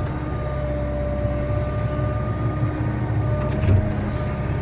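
Excavator diesel engine running steadily under load with a steady hydraulic whine, as the bucket swings and dumps dirt; a single thump late on.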